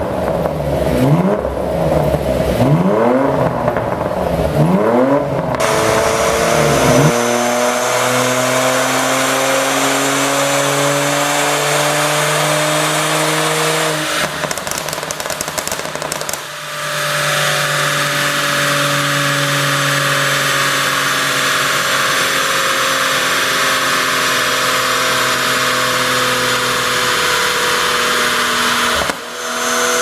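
Porsche Macan GTS's twin-turbo V6 through a tuned exhaust: revved in quick blips for the first several seconds, then running under load on a chassis dyno with its pitch slowly rising. Around the middle the pull breaks off into a burst of popping and crackling from the exhaust, the effect of a pops-and-bangs tune, before the engine pulls again.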